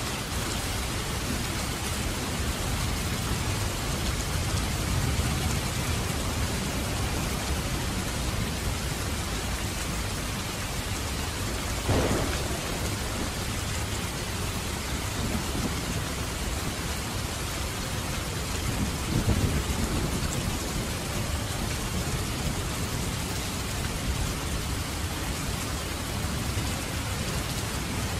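Steady rain falling, with low thunder rumbling under it. There is a sharp crack about twelve seconds in and a louder rumble about seven seconds later.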